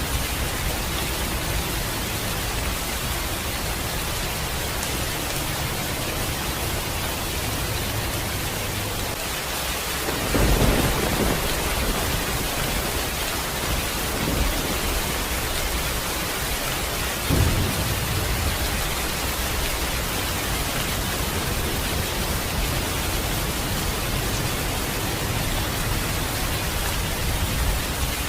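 Steady rain with thunder: a loud clap about ten seconds in that rumbles on for a second or two, then two shorter, fainter claps a few seconds apart.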